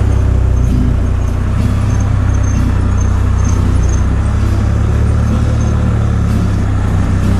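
Can-Am Spyder three-wheeled motorcycle's engine running steadily under way, an even low drone with road and wind noise on top.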